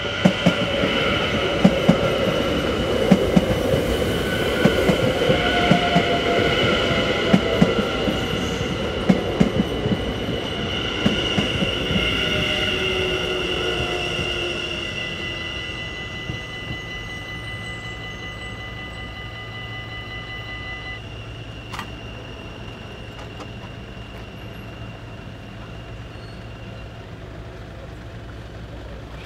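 Electric passenger train passing over a level crossing, its wheels clicking over rail joints at a steady beat, with a high steady whine over the rumble. The sound fades away after about fifteen seconds, leaving a low hum, with one sharp click a little past twenty seconds.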